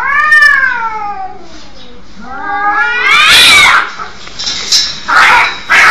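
Cats caterwauling. One long drawn-out yowl falls slowly in pitch over about two seconds, then a second, louder yowl rises. Short harsh noisy bursts follow near the end.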